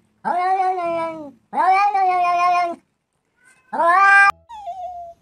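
A cat meowing loudly, three long drawn-out meows, the last one shorter and cut off abruptly. A brief, quieter falling whine follows near the end.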